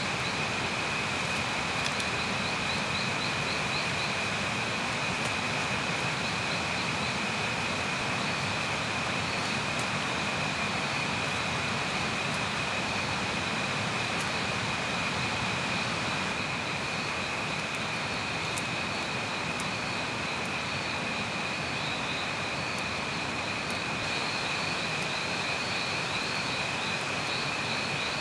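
Night-time jungle ambience: insects chirring steadily, one continuous high-pitched drone with pulsing trills above it, over an even background hiss. A few faint crackles from a small campfire.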